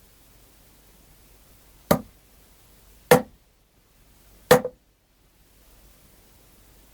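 Three sharp foley blows struck on a prop, about a second apart, the last trailing off slightly longer.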